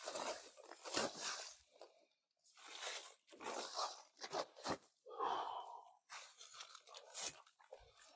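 An irregular run of crunching and rustling noises, each lasting from a fraction of a second to about a second, with short gaps between them.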